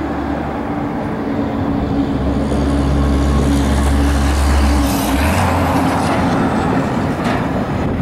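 Union Pacific diesel-electric locomotives at the head of a loaded coal train passing close by: a steady low engine drone that grows louder to a peak about four to five seconds in, with the engine note shifting about five seconds in as the locomotives go by and the cars follow.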